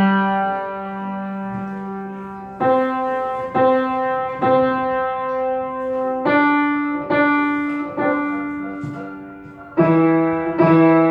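Piano playing a slow, simple piece: chords struck about once a second, each ringing out and fading before the next, with a pause of a couple of seconds between some of them.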